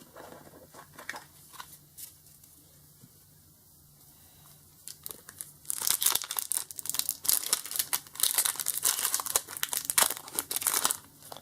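Foil wrapper of a Pokémon card pack crinkling and tearing as it is opened: a few faint handling ticks at first, then dense, rapid crinkling from about halfway in until just before the end.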